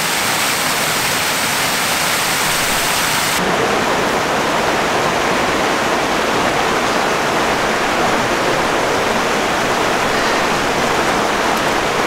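Creek water pouring over a rock-filled wire-basket fish barrier as a small waterfall, a steady loud rush. About three seconds in the sound cuts to a slightly duller, steady rush of the stream.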